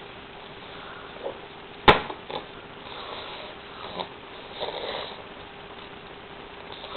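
Eating noises of someone having spaghetti: one sharp knock about two seconds in, a few lighter clicks, and a sniff near the middle.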